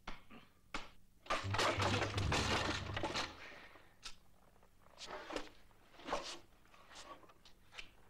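A crash of something breaking and clattering, lasting about two seconds from just over a second in, as a small portable pump organ and its player topple over. It is followed by a few fainter knocks and scuffs as the organ is dragged back up.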